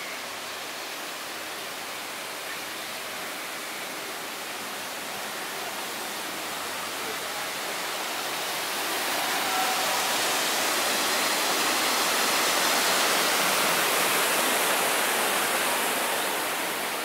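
Steady rushing of water, growing louder about halfway through and easing off near the end.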